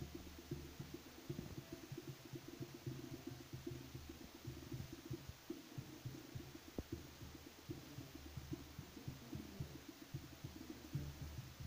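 Faint music from a procession's band some way off, little more than its low notes and drum thumps carrying.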